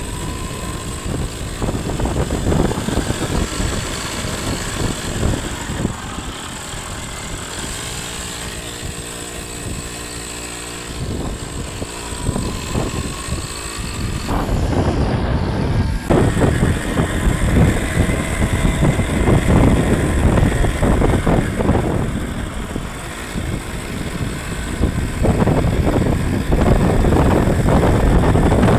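Motorcycle engine running while it is ridden along a bumpy dirt track, with road and wind noise that jolts and surges.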